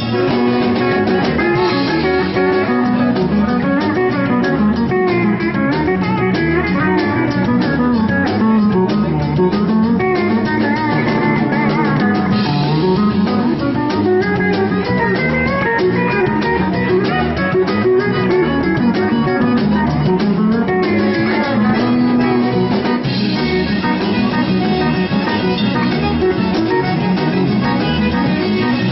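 Cajun band music: a steady, danceable passage with guitar and drums and no singing.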